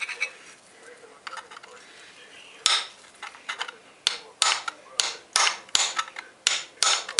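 Hammer striking a chisel set in the cut seam of a refrigerator compressor's steel shell, to split the housing in half. One sharp metallic blow comes about two and a half seconds in, then a run of blows at about three a second.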